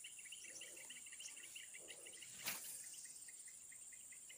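Faint insects chirping: a rapid run of short chirps over a steady high-pitched buzz, with one sharp click about two and a half seconds in.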